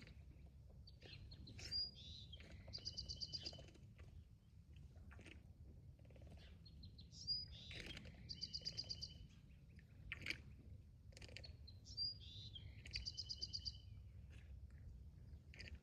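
A songbird singing the same short song three times, about five seconds apart: a few quick slurred high notes, then a fast even run of repeated high notes. A faint low rumble lies steadily underneath.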